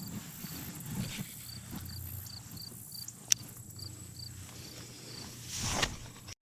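An insect chirping in short, evenly spaced high pulses, about three a second, with a faint steady high buzz behind it. A sharp click comes about three seconds in, and a brief whoosh near the end.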